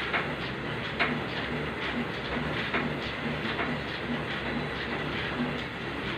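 Elliptical cross-trainer in use: its flywheel and linkage whir steadily, with a rhythmic click and knock at each stride.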